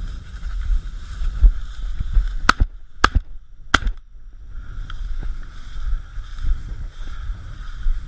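Three shotgun shots in quick succession, a little over half a second apart, starting about two and a half seconds in, fired at a flying bird. Underneath is a steady rustle and wind noise as the shooter walks through tall dry grass.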